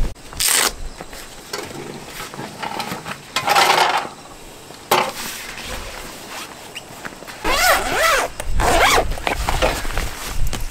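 A zipper pulled in several short strokes, with a longer stretch of pulling about eight seconds in.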